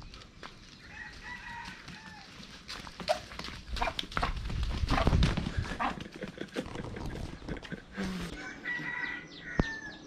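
A duck beating its wings hard in a flurry of rapid wingbeats, loudest in the middle. A rooster crows, one long slightly falling call, near the end.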